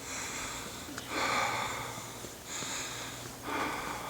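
A person breathing close to the microphone, a breath about every second, over a faint steady low hum.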